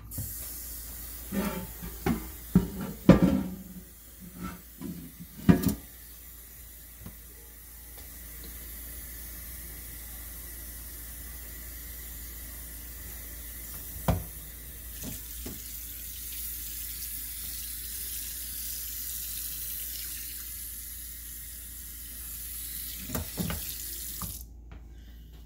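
Kitchen faucet running a steady stream of water onto a cast iron griddle in a stainless steel sink, filling it for a soapy soak; the water shuts off shortly before the end. A few sharp knocks come in the first few seconds, another about 14 seconds in, and a few more near the end.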